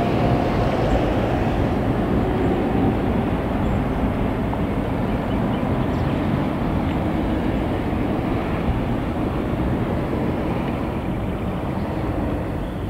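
A diesel-hauled freight train of sliding-wall wagons rolls away along a curved branch line, a continuous rumble of wheels on rails that slowly grows quieter as the train recedes. A faint whine fades out in the first few seconds.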